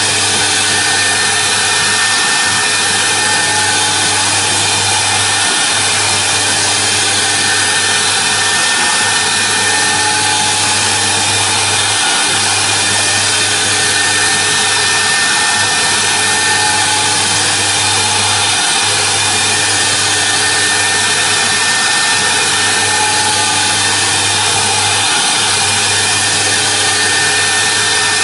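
CNC router spindle running steadily while a small end mill engraves a foam cylinder turning on the rotary axis: a steady high whine over a hiss, with a low hum that drops out briefly every few seconds.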